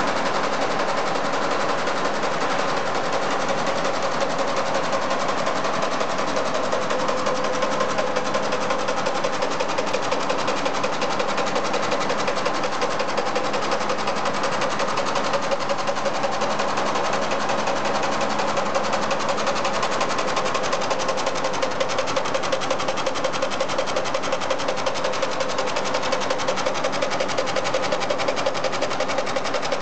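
Two-head commercial embroidery machine stitching at speed: a steady, rapid rhythmic needle clatter that runs without a break.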